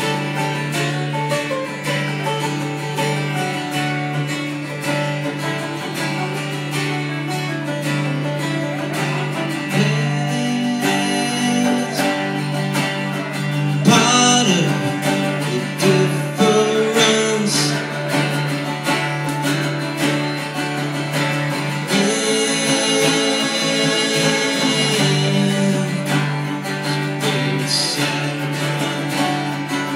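Live song on acoustic guitar, strummed steadily, with a second guitar accompanying and a man singing at the microphone in places.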